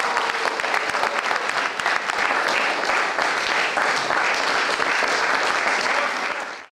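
A crowd of guests applauding, dense steady clapping that fades out and cuts off near the end.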